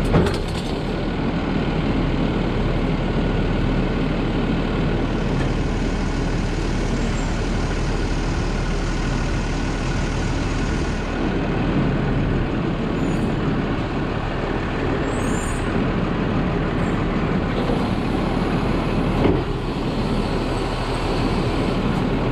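Automated side-loader garbage truck running and driving, its engine and body making a steady drone, with a single knock about nineteen seconds in.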